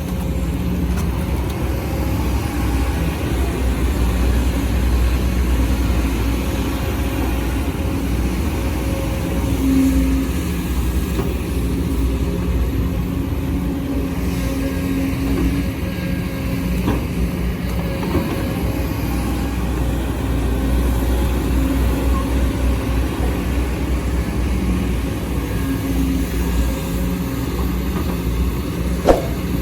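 Sumitomo SH210F excavator's diesel engine running steadily under working load, its note rising and falling slightly. A single sharp knock near the end.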